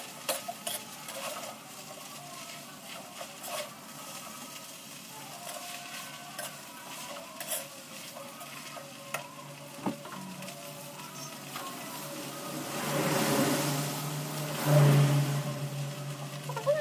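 Bakmi noodles sizzling in a wok as a metal spatula stirs and turns them, with scattered clicks and scrapes against the pan. Near the end a louder rushing swell with a low hum rises and fades.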